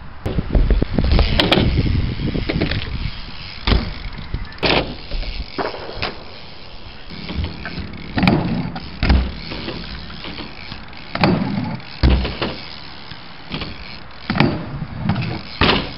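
Sunday Eric Lichtenberger Pro BMX bike riding a skatepark: tyres rolling on concrete and ramps, with sharp thuds and clatters of landings and the bike striking ramps about eight times.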